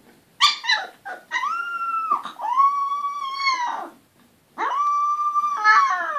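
18-day-old goldador puppy crying: a few short high yelps, then three long, high whines, each held steady for about a second, the last sliding down in pitch near the end.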